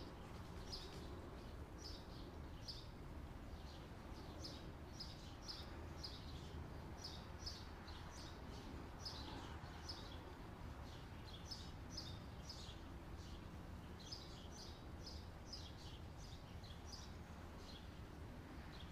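Small birds chirping faintly in quick repeated clusters of short high notes, over a low steady background hum.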